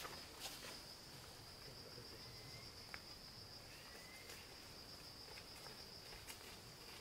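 Insects droning faintly and steadily at one high pitch, with a few faint clicks and two brief faint chirps.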